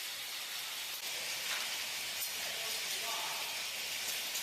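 A steady hiss with no distinct strikes or rhythm.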